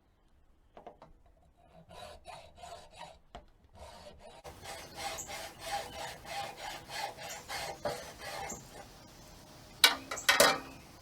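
Hacksaw cutting through a raised-garden-bed stacking stake, a steady run of back-and-forth rasping strokes, to trim off the part that would go into the ground. A few sharp knocks follow near the end.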